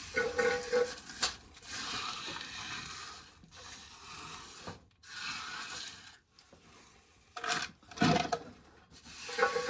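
A series of rustling, scraping noises in stretches of a second or so, with a few sharp clicks.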